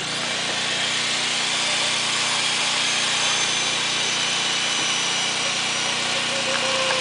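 A small engine or power tool running steadily, with a constant high-pitched hiss.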